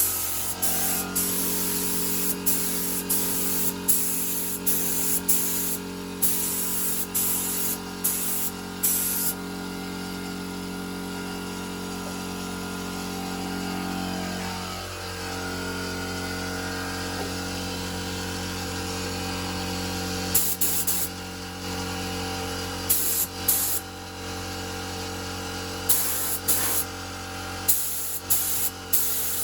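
Paint spray gun triggered in a run of short hissing bursts, roughly one a second, with a pause of about ten seconds in the middle. Under it runs a steady motor hum that dips in pitch briefly about halfway through.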